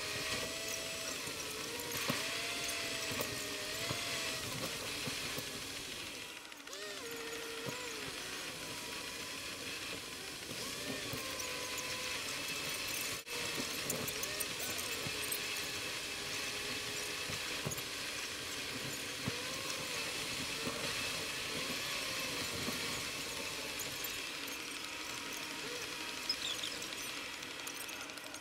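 Steady hiss of car tyres on a wet road, heard from inside the moving car, with wavering high squeaks over it.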